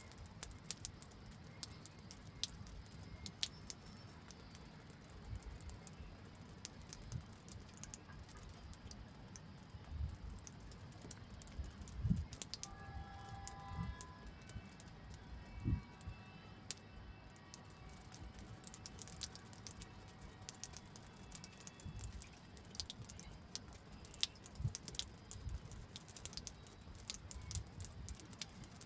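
Scattered light ticks and taps at an uneven pace, with soft low bumps. A faint run of short stepped notes rises about halfway through.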